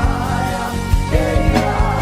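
Worship music with a steady beat and a wavering melody line over it.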